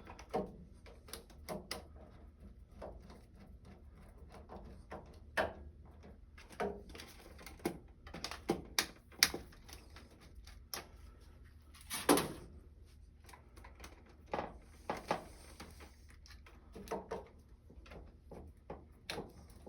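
Irregular small clicks and taps of hands pushing wire quick-connect terminals onto the spades of a soft serve machine's motor overload, the loudest knock about twelve seconds in, over a faint low hum.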